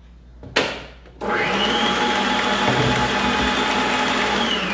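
Arno Planetária Deluxe 500 W stand mixer switched on, its motor running with a steady whine as the wire whisk beats egg yolks into whipped egg whites; the pitch begins to drop near the end as it slows. A short knock about half a second in, before the motor starts.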